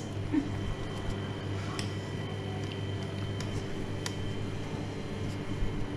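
Steady low hum of bakery equipment in a tiled workroom, with a few faint clicks and taps.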